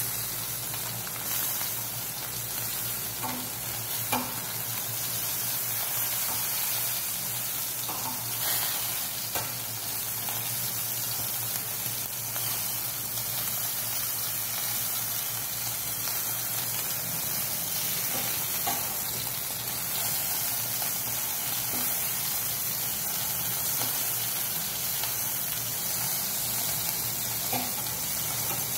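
Chicken pieces sizzling on the wire rack of an electric grill, a steady hiss, with a few light clicks as a metal spatula knocks against the rack while turning the pieces.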